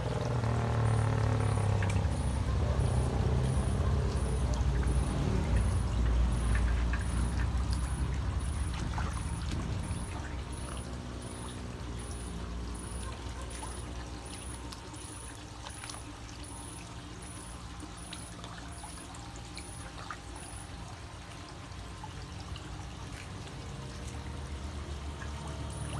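Water pouring and trickling steadily, heavier for the first ten seconds or so and then easing to a lighter flow.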